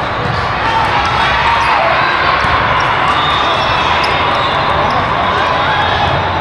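Chatter and calls from many players and spectators, with volleyballs being hit and bouncing on the court.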